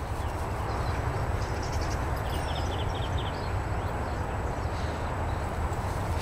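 Steady outdoor rumble, like wind on the microphone, with rustling as Jack Russell terriers move through tall grass, and a brief run of quick high chirps about two and a half seconds in.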